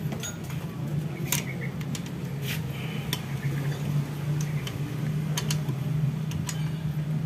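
Irregular metallic clicks and clinks of a socket wrench turning the cylinder-head bolts on a Honda Vario 125 engine, over a steady low hum.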